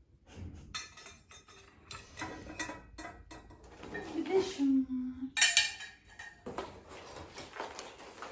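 Clinks, knocks and rattles of flat-pack coffee-table parts and fittings being handled and fitted together, with a louder clatter a little past the middle. A short murmured voice is heard about halfway through.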